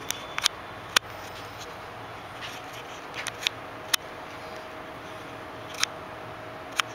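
Sharp metallic clicks and taps, about eight spread over several seconds with a small cluster in the middle, as strips of half-inch steel banding are handled and set into the clamps of a bandsaw blade welder. Under them runs a faint steady hum.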